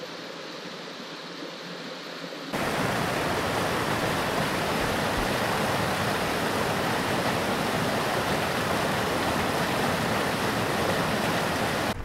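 Small stream rushing over a low weir and a rocky cascade in a steady rush of water. About two and a half seconds in it jumps suddenly much louder and fuller, close to the white water.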